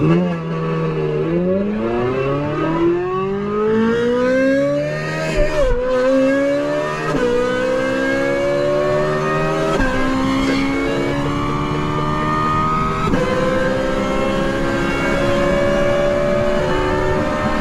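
Ferrari 458's V8, fitted with a Brilliant aftermarket exhaust, at full throttle, accelerating up through the gears. The pitch climbs steadily and dips sharply a little at each quick upshift, four times.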